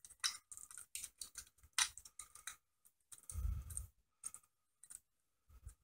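Faint, irregular clicks and taps of metal needle-nose pliers against the small 3D-printed plastic parts of a toy robot's gearbox as a crank shaft is worked into place, with a brief low thud a little past halfway.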